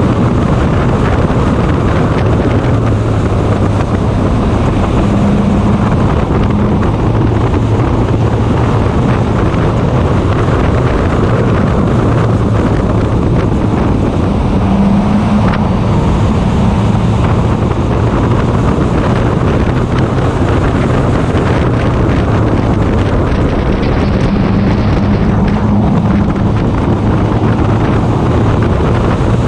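Stock car engine running hard under racing load, heard from an onboard camera with heavy wind noise on the microphone. The engine note climbs higher three times, for a second or two each.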